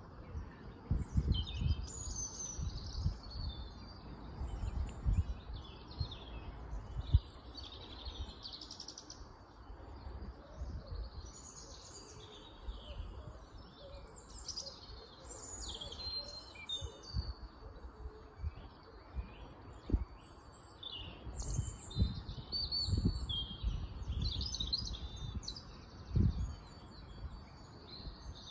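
Several small songbirds singing and chirping in short, overlapping phrases throughout, over irregular low rumbles and thumps.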